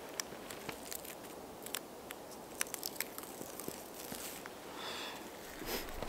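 Scattered small crunches and snaps of snow and twigs, with a longer crunch about five seconds in.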